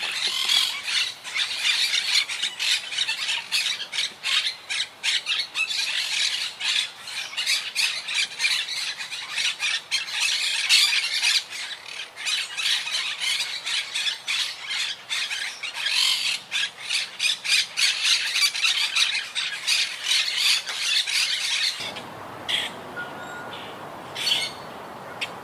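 A flock of monk parakeets (Quaker parakeets) keeps up a dense, nonstop chatter of harsh squawks, the colony's ordinary non-alarm calling. About 22 seconds in it drops suddenly to a quieter background with a few scattered calls.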